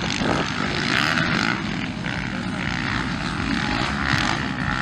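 Several motocross bikes racing, their engines making a steady buzzing drone that rises and falls slightly in pitch.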